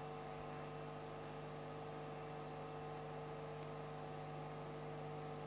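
Faint steady electrical hum from the sound system: a few constant tones over a light hiss, with no change.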